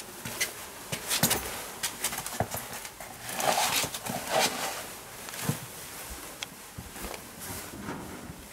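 Domestic cat meowing twice, about three and a half and four and a half seconds in, amid scattered clicks and rustles of movement.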